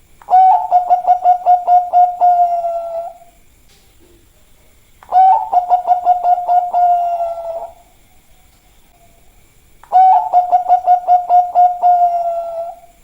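Bangkok-line zebra dove (perkutut) cooing: three song phrases about five seconds apart, each a quick run of about ten pulsed coo notes over a held tone that sags slightly and fades at the end.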